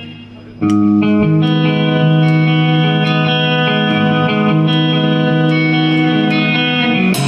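Live band starting a slow song: held, chorus-tinged guitar chords come in about half a second in, with a light tick on each beat roughly every 0.8 seconds and a louder cymbal-like hit just before the end.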